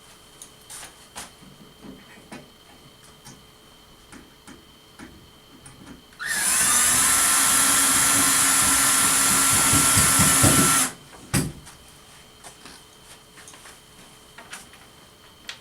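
Power drill spinning up and running steadily for about four and a half seconds near the middle, then stopping abruptly, with scattered light clicks of handling before and after.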